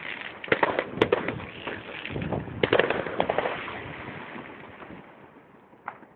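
Fireworks going off: a fast run of sharp cracks and bangs, densest over the first few seconds, dying away after about four seconds to one last crack near the end. The sound is dull and thin, cut off at the top as in a low-quality phone recording.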